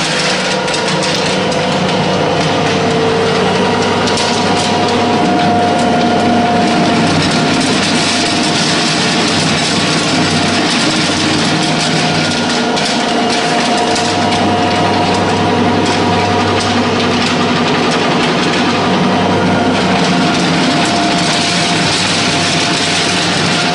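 Animal feed pellet mill running steadily under load, pressing feed into 8 mm pellets: a constant machine hum with a few steady tones under a dense, even grinding noise.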